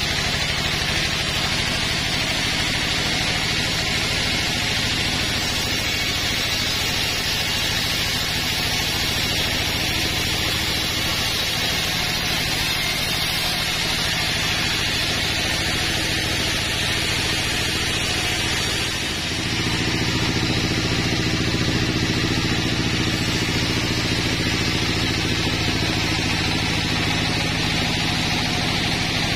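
Band sawmill running steadily, its band blade cutting lengthwise through a log: a machine drone under a continuous sawing hiss. About two-thirds through the sound dips for a moment, then runs on slightly louder.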